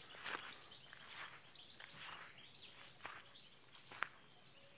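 Faint village morning ambience: scattered short bird chirps and calls over a quiet background, with one short, louder sound about four seconds in.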